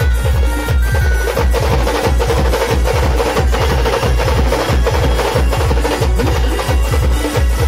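A live band's large drums beaten hard and fast with sticks: a dense, driving rhythm of deep thuds and sharp stick cracks, with a melody line playing behind them.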